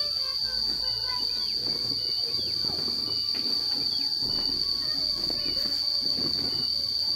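Steady high-pitched drone of insects, such as cicadas or crickets, holding one unbroken tone, with faint irregular rustling beneath it.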